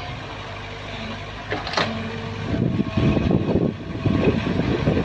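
Kobelco SK03 mini excavator's diesel engine running steadily under hydraulic load, with a brief hiss about a second and a half in. From about halfway the bucket digs and scrapes through the soil, a rough crunching over the engine.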